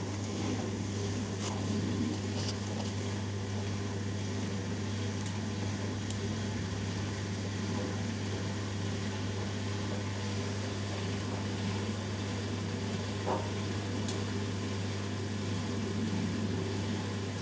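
Hoover Dynamic Next DXA610IW3 washing machine in the first seconds of its spin cycle, a steady low hum with a few faint clicks.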